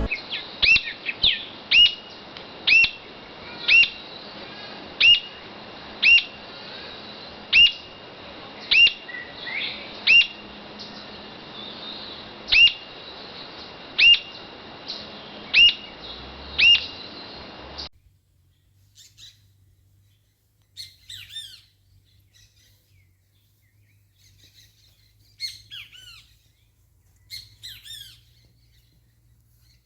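Birds calling: first a bird repeating a short, falling call about once a second over a faint hiss. About two-thirds of the way in the sound cuts abruptly to scattered bursts of quick chirps.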